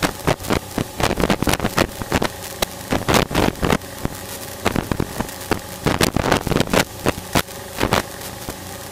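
Small training airplane's engine droning steadily during the climb after takeoff, heard in the cockpit. Irregular loud crackling bursts of noise on the microphone keep breaking through the drone.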